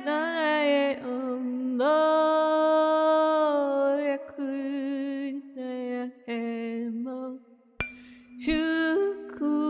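A voice chanting wordless healing syllables in long, held, slightly wavering notes over a steady low drone, with the voice pausing briefly several times. A single sharp click sounds about eight seconds in.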